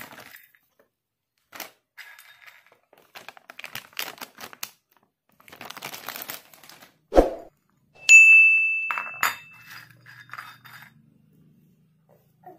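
Dry soya chunks tipped from a plastic packet, pattering and clicking into a small glass bowl, with the packet crinkling. About seven seconds in comes a sharp knock, then a loud, clear glass ding that rings out and fades over about two seconds.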